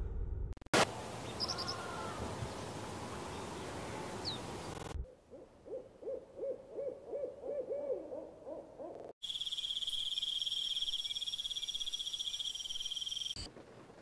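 A run of separate nature sound clips: first a loud rushing ambience with a few short bird chirps, then an owl hooting, about eight hoots in quick series. Then comes a steady high-pitched trilling, and faint rain begins near the end.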